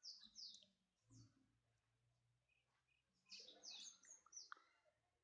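Faint bird chirps: a few short, high notes sliding downward at the start, then a longer run of them about three seconds in, over near silence.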